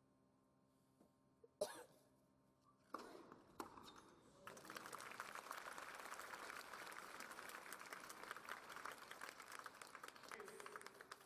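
Tennis racket striking the ball: one sharp pop about one and a half seconds in, then two more hits a second or two later. From about four and a half seconds in, the crowd applauds the end of the point, the clapping easing off near the end.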